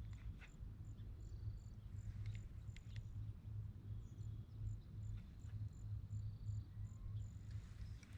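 Cricket chirping: short high chirps repeated about twice a second, over a low steady rumble, with a few faint clicks.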